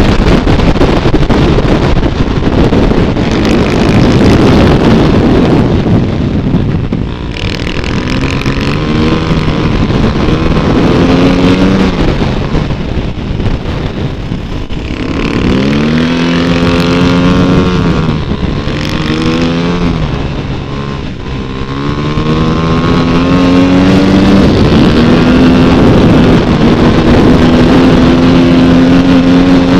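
Dirt bike engine under way, easing off and picking up again several times, its pitch climbing in steps as it accelerates through the gears about halfway through.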